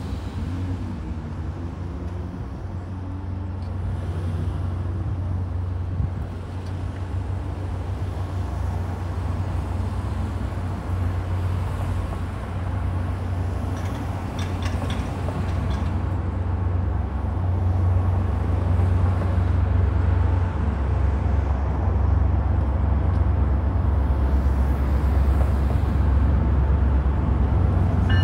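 Diesel-hauled MBTA commuter train approaching, a low rumble that grows steadily louder as it nears.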